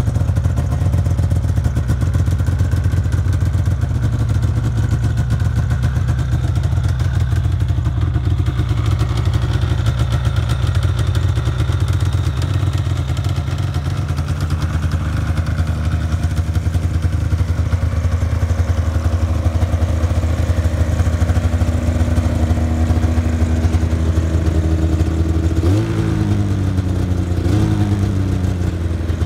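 2011 Arctic Cat Sno Pro 600 snowmobile's two-stroke twin idling steadily, with two quick throttle blips near the end that rise and fall back to idle.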